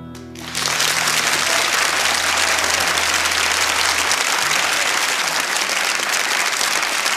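Applause from an audience on the music soundtrack, starting about half a second in as the song's last chord dies away. The chord's low notes fade out about four seconds in.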